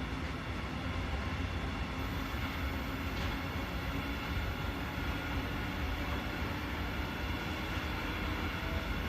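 Freight train of container wagons rolling past, a steady low rumble.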